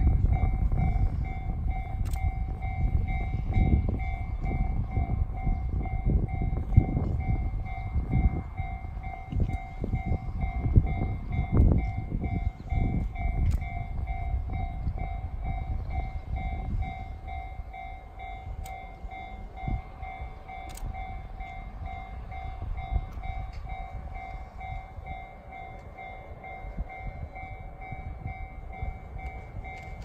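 Japanese level-crossing warning bell ringing in quick, evenly repeating strokes, signalling an approaching train. Wind buffets the microphone in gusts, heavier in the first half.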